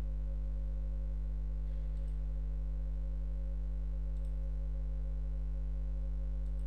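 Low, steady electrical mains hum picked up by the recording microphone, with two faint clicks about two and four seconds in.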